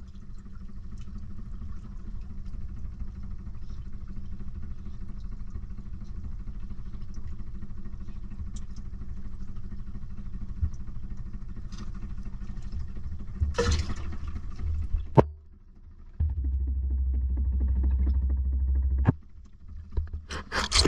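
Engine running steadily with a low hum. About fifteen seconds in it cuts out after a click, then comes back louder for a few seconds before another click.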